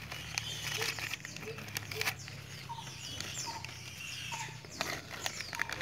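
Newspaper masking crinkling and tearing as it is peeled off a freshly painted motorcycle taillight housing, heard as many short crackles. Birds chirp in the background with short repeated notes.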